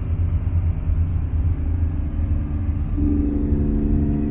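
Twin-turbocharged VQ37 V6 of a G37 heard from inside the cabin while driving: a steady low engine and road rumble, with a steady drone coming in about three seconds in.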